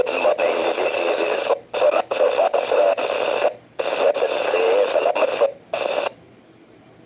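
Amateur radio transceiver receiving a weak station: a voice buried in heavy static, too noisy to make out, breaking up several times. The signal drops out about six seconds in, leaving only faint receiver hiss.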